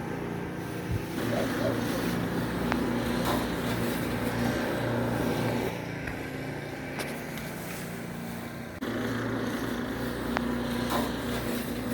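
A steady low motor hum with a rushing noise over it. The sound shifts abruptly in level three times: about a second in, around the middle, and again past eight seconds.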